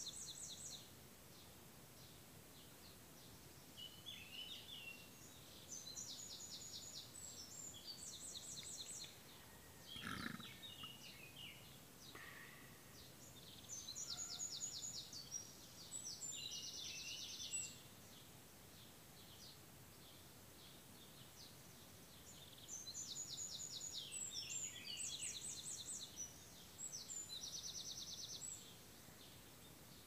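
A songbird singing high, repeated phrases of chattering notes and fast trills, each phrase a few seconds long with pauses between. A brief low thump about ten seconds in.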